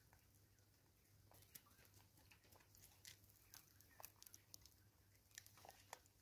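Faint, irregular clicks and rustles of vervet monkeys feeding on seed from a cut-off plastic bottle, with seed and plastic being handled and bitten.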